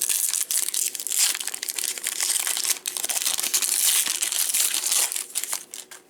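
Foil trading-card pack wrapper crinkling and crackling for several seconds as it is handled and opened, dying down near the end.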